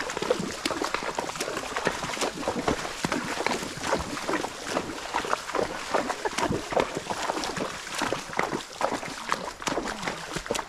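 Horses walking through shallow water, hooves splashing and clattering in a steady, irregular run of steps.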